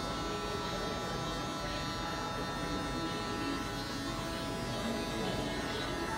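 Electric hair clippers running with a steady buzz while trimming hair at the side of the head near the ear.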